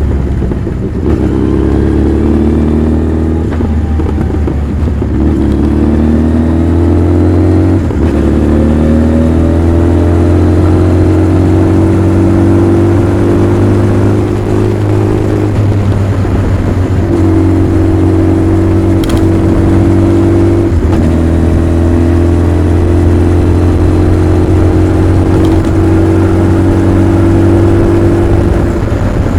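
Honda CB1300 Super Bol d'Or's inline-four engine and exhaust while riding: the pitch climbs in short runs broken by brief dips as the rider shifts up, then holds fairly steady at cruising speed, with a couple more short dips near the middle.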